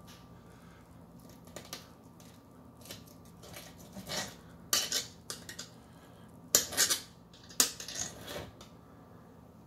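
Fillet knife blade clicking and scraping against a plastic cutting board while trimming raw fish fillets, a series of sharp clicks, loudest in the second half.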